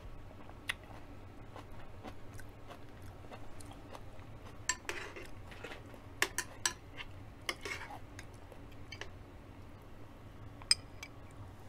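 Eating sounds: a person chewing, with scattered sharp clicks of a metal spoon against a glass bowl and dishes as she scoops soup and rice; the loudest click comes near the end.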